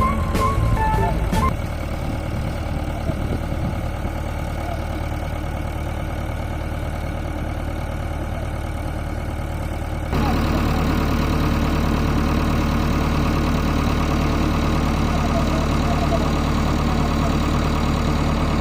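JCB 3DX backhoe loader's diesel engine idling steadily. It steps up louder about ten seconds in.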